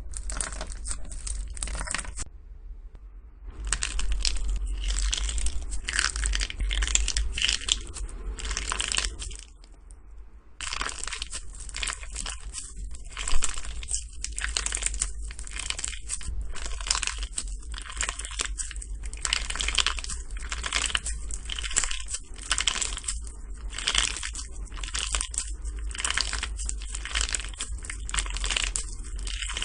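Slime being squeezed and pressed by hands, giving a dense run of crackling, crunching clicks. The crackling drops away briefly twice, about two seconds in and again near the ten-second mark, then carries on.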